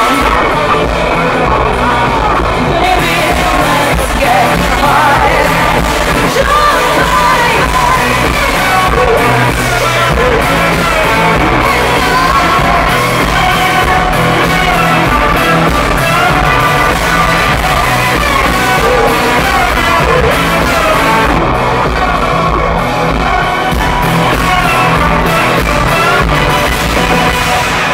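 Loud live rock-pop band music with a steady beat, played over a stadium PA and recorded from the crowd, with singing and fans yelling over it.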